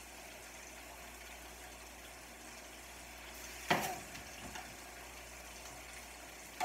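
Food frying in pans on the stove, a steady quiet sizzle. A sharp clack of kitchenware rings out about halfway through, followed by a few lighter clinks.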